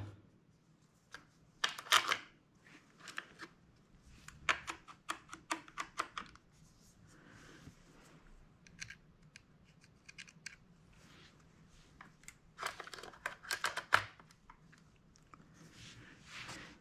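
Small hard clicks and scrapes of a red dot sight's mount being pushed and worked along a shotgun's Picatinny rail, where it sticks and won't slide. The clicks come in uneven clusters, loudest a couple of seconds before the end.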